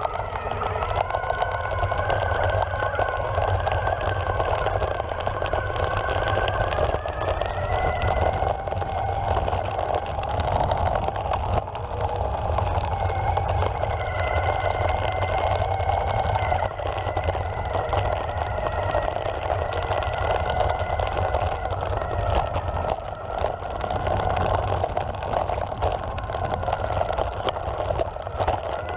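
Evolve Carbon GT electric skateboard's belt-drive motors whining steadily as it rides across grass, the pitch rising about seven seconds in, over a constant low rumble of wheels and wind.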